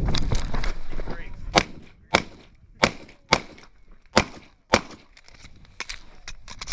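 Airsoft pistol firing about six sharp, separate shots spaced roughly half a second to a second apart, with fainter clicks and the rustle of movement between them.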